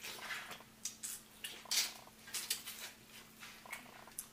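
Close, wet mouth sounds of eating a seafood boil by hand: a run of short, sharp chewing smacks and clicks, the loudest a little under two seconds in.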